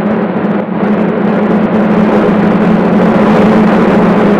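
Loud, steady drone of propeller aircraft engines on an old film soundtrack: one deep held hum under a rough rushing noise.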